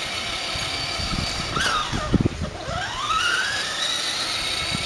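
Electric motor of a battery-powered ride-on toy car whining as it drives, the pitch dropping about halfway through as it slows and then rising again as it speeds up, with a few low thumps in the middle.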